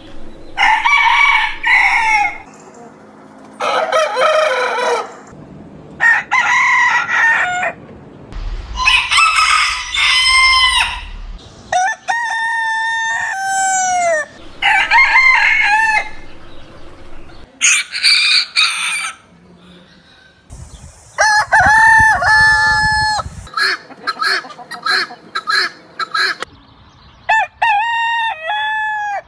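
Roosters crowing one after another, about ten separate crows of one to three seconds each, from several different birds.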